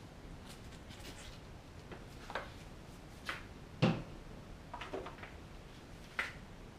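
Scattered knocks and clacks of small pump parts and tools being handled on a workbench, about six in all, the loudest a dull thump a little under four seconds in.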